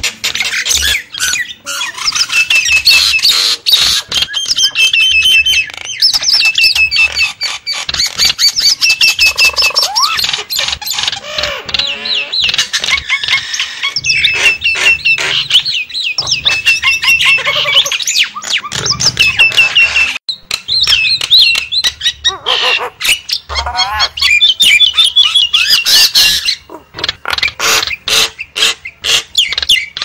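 Javan mynas (jalak kebo) chattering, squawking and whistling over one another without pause, with many sharp clicking notes: a noisy flock-style myna lure call used to draw wild mynas in.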